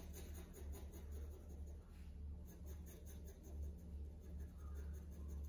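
Faint pencil strokes on drawing paper as light shading is hatched in, over a low steady hum.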